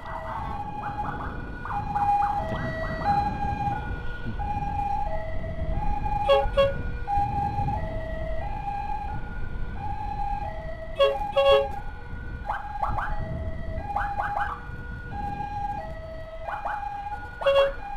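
Two-tone hi-lo emergency siren, alternating steadily between a higher and a lower note, with short bursts of a different chirping siren tone breaking in three times. Motorcycle engine and wind rumble underneath.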